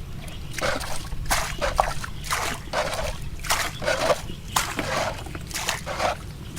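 Water splashing and sloshing in a series of about eight short bursts, roughly one every half second or so, over a steady low rumble.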